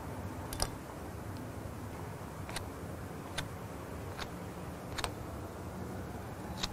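Steady low rumble of distant aircraft engines, with about six sharp clicks at uneven intervals.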